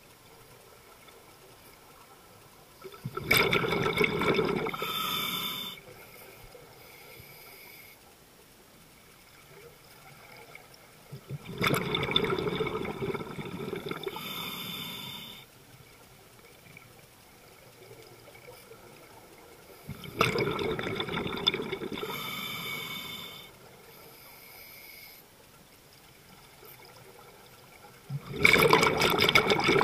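A scuba diver breathing through a regulator underwater: four exhalations, each a 2 to 4 second rush of bubbles, about eight seconds apart. A faint hiss of the demand valve on each inhalation falls between them.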